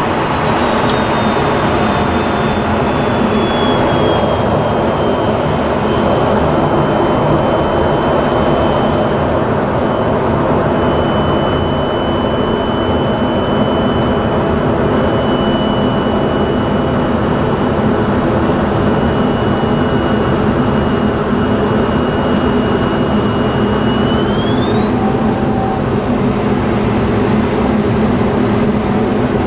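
F-16 fighter's jet engine and rushing air heard inside the cockpit during display manoeuvres, a loud steady roar. A thin high whine over it slowly falls in the first few seconds, holds, then rises sharply about 24 seconds in.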